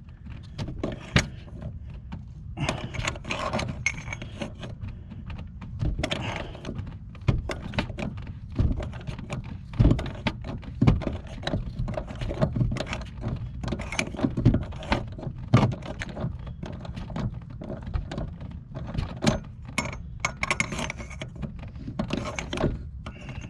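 Irregular metallic clicks, clinks and knocks of hand tools and metal parts being handled at a car's door-hinge bolts, over a steady low rumble.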